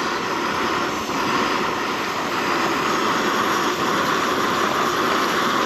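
Camping stove burner running with a steady, even hiss under the cooking pan.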